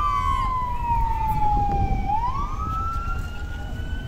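Police sirens of a motorcade escort wailing: a slow wail that falls for about two seconds and then rises again, with a fainter second siren above it, over a low rumble.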